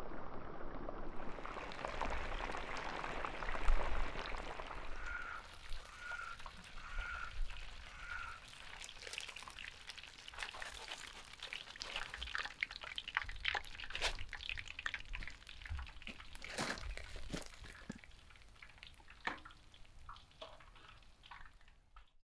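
Hot frying oil sizzling and crackling in a deep cauldron as fried chicken pieces are lifted from it in a wire-mesh strainer. Four short high chirps sound about five to eight seconds in, and the sizzle thins out toward the end.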